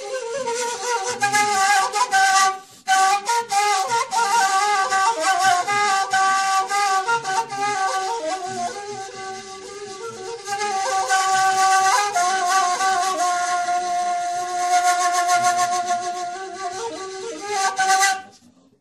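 A flute played solo: a slow melody of held notes with a breathy, airy tone. It breaks off briefly about three seconds in and stops just before the end.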